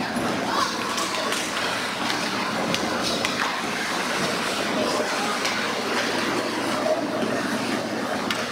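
Ice rink sound during a youth hockey game: skates scraping the ice, with scattered sharp clacks of sticks and puck, over steady rink noise and indistinct voices.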